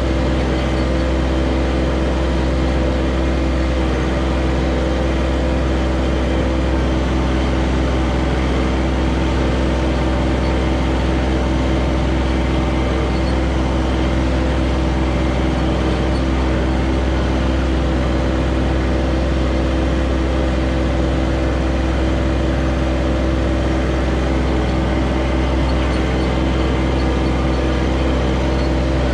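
John Deere 1025R compact tractor's three-cylinder diesel engine running steadily, with a constant low hum and an even drone that does not change.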